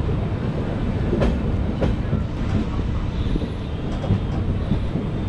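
Indore–Dehradun Express passenger train running along the track, heard from an open coach doorway: a steady rumble of the wheels on the rails with a few sharp clacks, about a second in and again just before two seconds.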